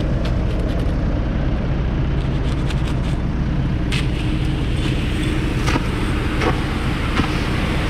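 Diesel engines of the tractor and telehandler idling steadily, with scattered sharp clicks. From about four seconds in, granular fertiliser pours and rattles out of a big bag into the spreader hopper.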